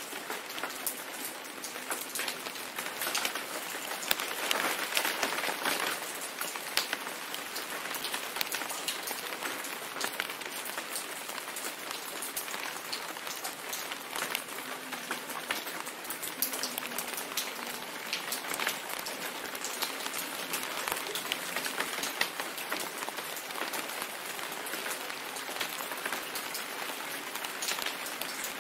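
Steady rain falling, with a dense stream of separate raindrops clicking over an even hiss.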